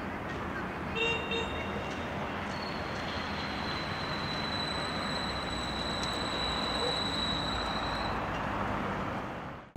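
Steady street traffic noise. A thin, high, steady tone runs through the middle, and there is a brief louder sound about a second in.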